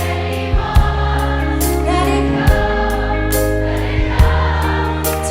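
Background music: sustained choral chords over a deep, steady bass, with a few sharp percussive hits.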